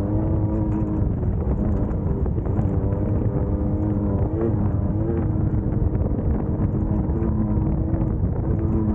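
Class 1600 off-road race car's air-cooled 1600 cc Volkswagen engine running hard, its pitch holding steady with a few brief rises and dips, over a constant low rumble.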